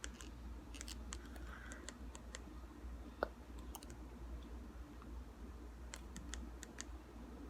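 Light, irregular clicking at a computer while browsing, with one sharper click about three seconds in, over a steady low hum.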